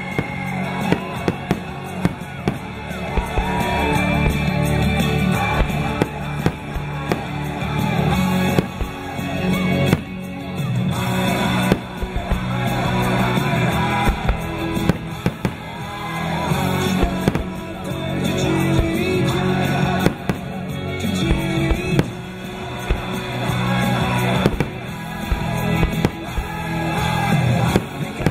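Fireworks bursting, with many sharp bangs and crackles scattered throughout, over loud music that runs the whole time.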